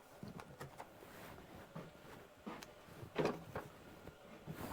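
A few light knocks and clicks of tools and objects being handled and set down, the loudest a little past the middle.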